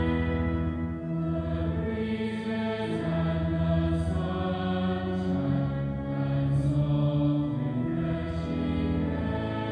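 Music: a choir singing slow, long-held chords over a low sustained bass.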